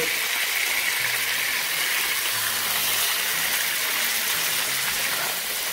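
Spice-rubbed chicken pieces frying in hot oil in a nonstick wok: a steady sizzle as they are turned with a slotted spatula.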